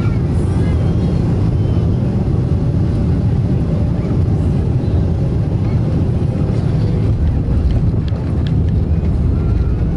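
Boeing 777-300ER cabin noise on final approach and landing: the steady low rumble of its GE90 engines and the airflow, heard from a seat over the wing. A few brief knocks come about eight seconds in, as the wheels meet the runway.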